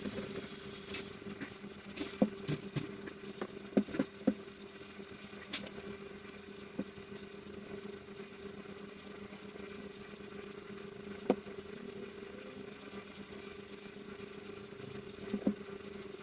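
A steady low hum with scattered small clicks and taps, most of them in the first few seconds and one each near the middle and near the end.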